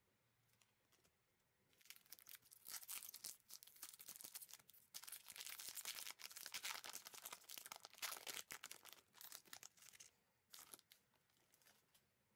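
Plastic trading-card pack wrapper being torn open and crinkled by hand. It starts about two seconds in as dense crackling, thins out near the end, and a few last crinkles follow.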